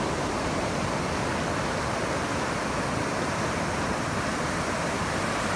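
Ocean surf breaking and rushing in, a steady even roar of waves.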